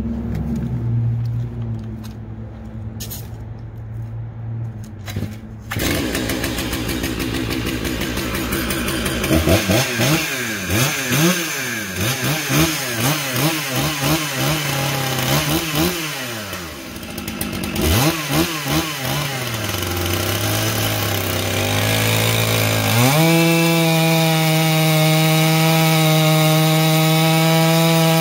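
Stihl MS 661 C-M chainsaw, a big two-stroke saw, idling. It is blipped up and down in quick revs for several seconds, drops back to idle, then from about 23 s is held at steady high revs, cutting into a large log with a freshly sharpened chain and a filed-down bar.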